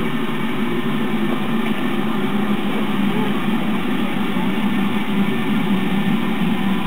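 BR Standard Class 4MT 2-6-4 tank steam locomotive standing in steam, a steady hiss of steam escaping around its cylinders and front wheels.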